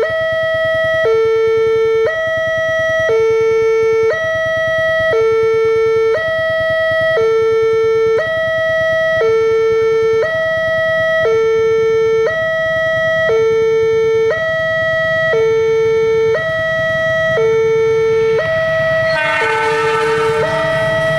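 Railway level-crossing warning alarm: an electronic signal alternating steadily between a higher and a lower tone, each held about a second, sounding as a train approaches. In the last couple of seconds the noise of the approaching train rises underneath it.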